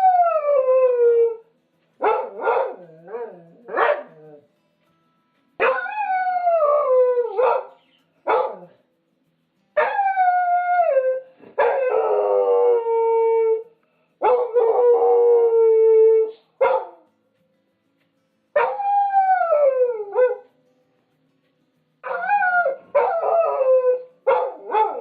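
Dog howling: a string of drawn-out howls, most falling in pitch, with short silent gaps between them and a few shorter yelping calls. In the middle two longer, fuller howls overlap as if several voices join in.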